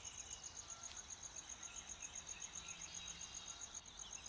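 An insect chirping steadily: a high-pitched, evenly pulsed trill of about nine pulses a second.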